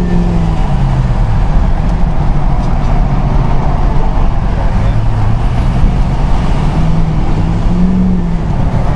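Ford 6.0 L Powerstroke V8 turbo-diesel heard from inside the cab, pulling hard under acceleration over steady road noise. The engine note falls about a second in as the automatic transmission upshifts, climbs again over several seconds as the revs build, and drops again near the end at the next shift.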